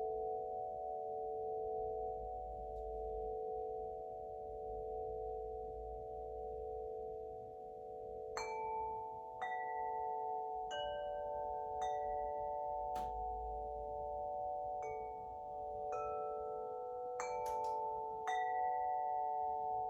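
Winter wind chime ringing: a cluster of sustained, overlapping tones hangs on. About eight seconds in, the rods start being struck again, roughly ten times at irregular intervals, each strike adding a bright new note to the shimmer.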